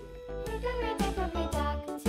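Children's background music with a moving melody over a steady bass and a beat of about two strokes a second; it grows louder about half a second in.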